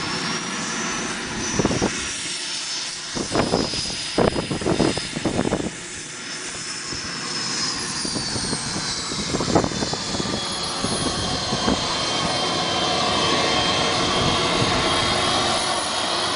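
Radio-controlled model jet engine of a BAe Hawk model running, a steady rush with a high whine that slowly rises and falls in pitch. Several short low thuds break in during the first half.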